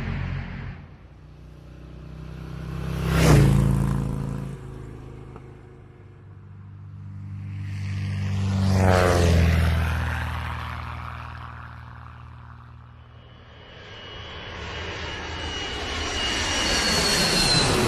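Aircraft engines passing by three times, each swelling and fading with a drop in pitch: a quick pass about three seconds in, a slower one around nine seconds, and a third building toward the end with a high whine.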